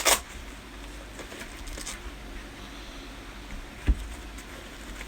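Faint rustling and handling of gear in a nylon bag pouch, with a sharp click right at the start and a single low thump about four seconds in.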